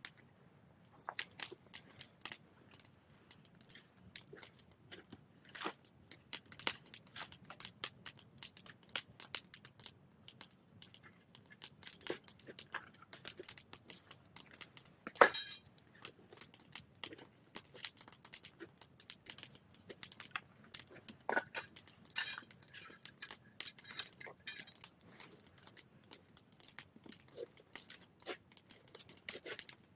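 Wood fire crackling, with irregular snaps and one louder pop about halfway through.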